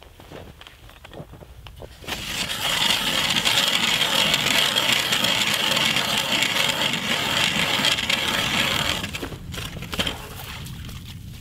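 Hand ice auger drilling: a steady grinding scrape of the blades cutting into the lake ice, starting about two seconds in and stopping about nine seconds in. Shuffling steps in snow come before it, and a single knock near the end.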